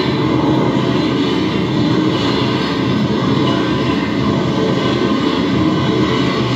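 Loud, steady rumbling vehicle sound effect, like a train or aircraft going by, played over a hall's loudspeakers as the soundtrack of a mime act.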